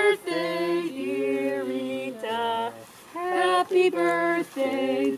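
A small group of people singing a song together without instruments, in long held notes.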